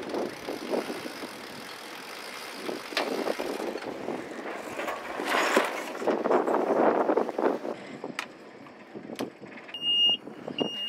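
Wind and water noise aboard a sailboat under sail, rising and falling, with a few sharp clicks. Near the end come several short, high electronic beeps.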